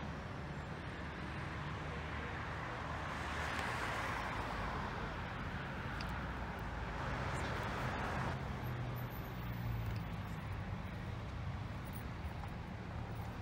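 Road traffic: a steady low engine rumble with vehicles passing, one swelling about three seconds in and another about seven seconds in.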